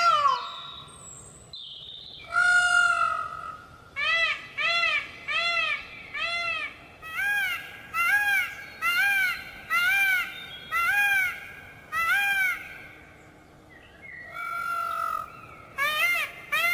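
Peafowl calling: loud, nasal, pitched calls, with a long drawn-out call, then a fast run of about a dozen short, honking calls at under two a second, another long call, and more short calls near the end.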